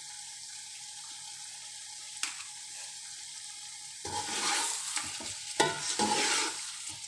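Chicken frying in its spiced masala in a pot, sizzling quietly and steadily. About four seconds in, a spoon starts stirring it, bringing louder sizzling and scraping with a couple of sharp knocks against the pot.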